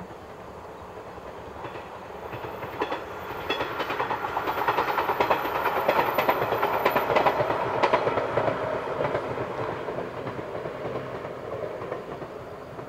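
A 455/413-series electric train passing on open track, its wheels clicking over the rail joints. The sound builds as the train comes near, is loudest about five to eight seconds in, then fades as it runs away.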